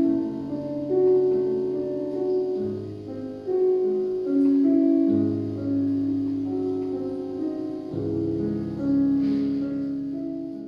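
Solo piano playing a slow introduction of held chords, the bass note changing every few seconds.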